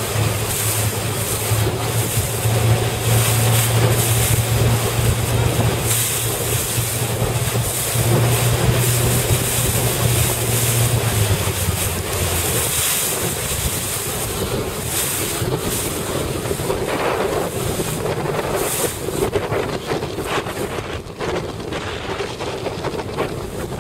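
Strong wind buffeting the microphone over rushing, choppy water, with the steady low hum of a motorboat engine that drops lower about eleven seconds in and fades out a second or so later.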